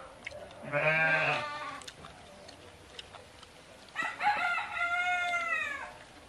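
Two calls from farm animals: a short call about a second in, then a longer rooster crow from about four seconds in, falling in pitch at the end.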